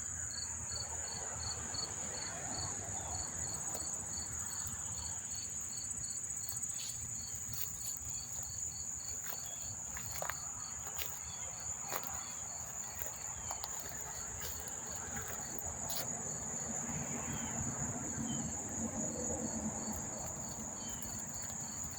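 A chorus of many crickets chirping: a continuous high trill, with a slower regular chirp about two to three times a second beneath it.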